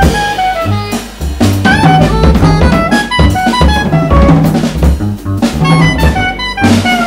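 Jazz trio playing: a soprano saxophone plays running lines over a plucked double bass and a drum kit with frequent drum and cymbal strikes.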